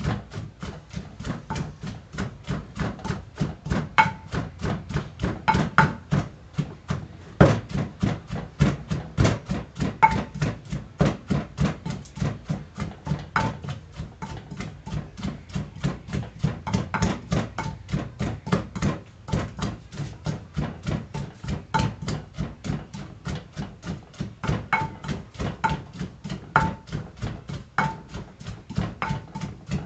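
Pestle pounding chili paste of dried chilies and boiled shallots, lemongrass and fingerroot in an earthenware mortar: steady, evenly spaced thuds, about three a second, with an occasional sharper knock.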